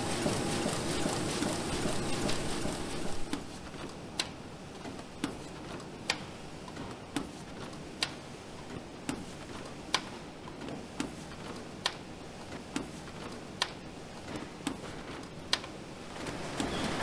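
Bookbinding machinery running: a noisy stretch for about the first three seconds, then a regular sharp click about once a second over a low mechanical hum.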